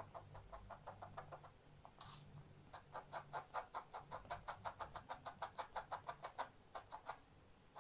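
Dip pen's metal nib scratching on paper in short, quick strokes as ink is hatched into a dark area, sparse at first, then a fast even run of about six strokes a second that stops near the end.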